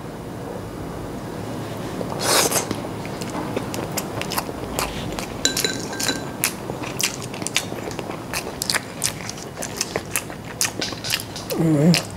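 A person eating, picked up close by a clip-on microphone: chewing and wet mouth smacks heard as many sharp irregular clicks, with a louder noisy burst about two seconds in. There is a short hum of the voice near the end.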